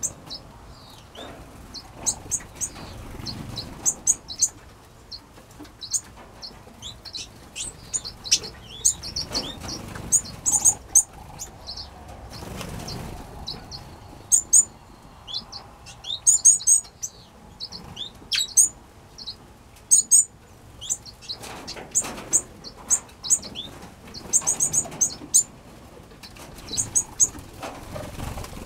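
Small finches in a mixed aviary giving short, high chirps again and again, with brief flutters of wings as birds fly between perches.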